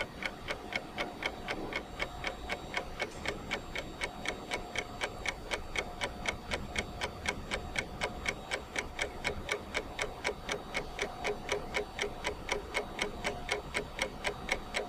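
Steady, rapid mechanical ticking, about four to five even clicks a second, with a faint steady hum beneath.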